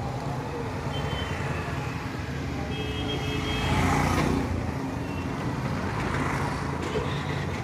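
Street traffic: motor scooters and cars running past, a steady engine hum that swells about four seconds in as a vehicle goes by close.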